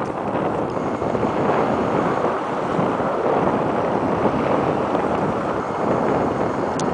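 Strong wind buffeting the microphone in a steady rush, over the wash of choppy water.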